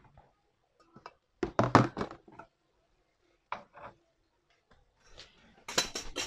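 Hard objects being set down with a few short knocks and clatters, among them a moka pot placed on the metal pan supports of a portable gas stove on a wooden shelf. The loudest knocks come about a second and a half in, with a denser burst of clatter near the end.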